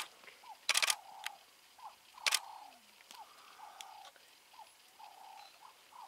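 A camera shutter firing in two quick bursts, about a second and a little over two seconds in, over soft, repeated short squeaky animal calls.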